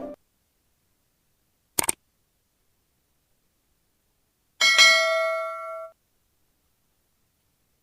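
A short sharp double click, then a metallic clang that rings with a bell-like tone for about a second before cutting off abruptly.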